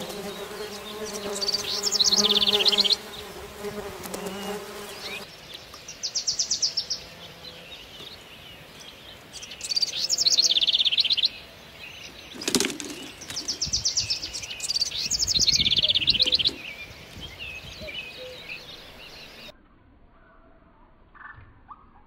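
Small songbirds singing short, fast trilled phrases every few seconds, over a steady buzzing hum during the first few seconds. There is a single sharp knock about halfway through, and everything drops much quieter near the end.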